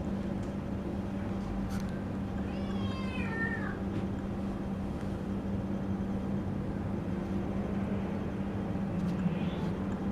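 A domestic cat meowing once, a drawn-out call about three seconds in, over a steady low hum.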